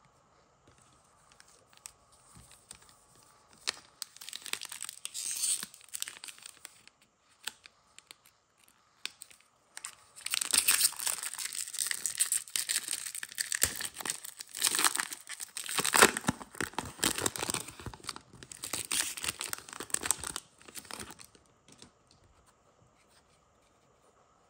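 Foil trading-card pack wrapper being torn open and crinkled by hand: a few scattered crackles, then about ten seconds of dense tearing and crinkling that stops suddenly.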